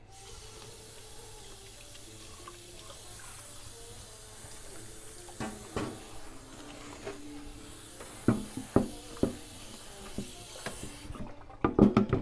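Kitchen tap running into a sink, turned on at the start and shut off about eleven seconds in, with several knocks and clatters of things handled in the sink and a burst of clattering near the end.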